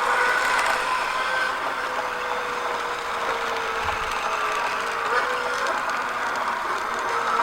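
Toy remote-control LaFerrari car running, a steady whine that drifts slowly in pitch over a rushing noise.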